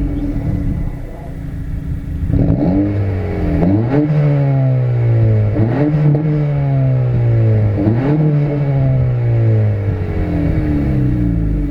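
2022 Honda Civic Si's L15B7 1.5-litre turbocharged four-cylinder heard at the tailpipes through its new high-flow exhaust, revved in four quick throttle blips. Each rev rises sharply and then falls slowly back toward idle.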